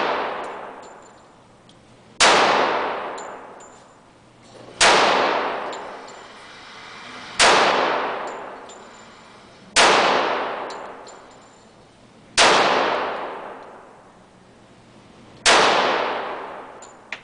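.45-calibre handgun fired slowly six times, about two and a half seconds apart. Each shot is a sharp crack followed by a long echoing decay of about two seconds.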